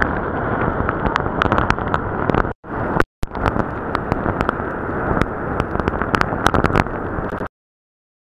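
Cyclone-force wind blasting the camera microphone: a dense rumble full of crackling pops, with two brief dropouts about two and a half and three seconds in, cutting off abruptly into silence near the end.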